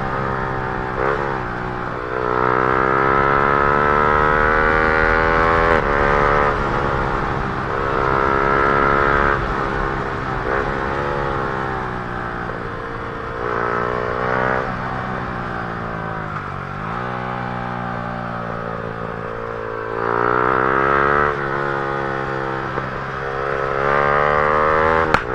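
Yamaha R15 M's single-cylinder engine through an Akrapovic full-system exhaust, riding hard. Its note climbs steeply several times under acceleration, then drops with gear changes and on closing the throttle.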